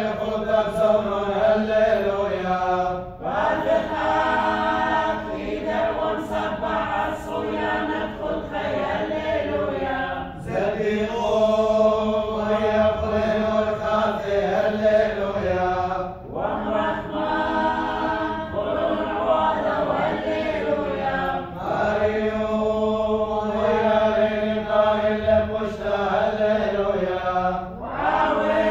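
Voices singing a Church of the East liturgical chant together, in long held phrases with a short break for breath about every five to six seconds.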